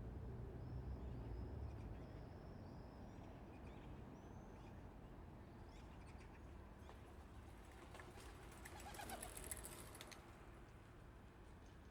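Faint early-morning town square ambience: small birds chirping over a low distant rumble. About two thirds of the way through comes a brief flurry of clicks and rustling.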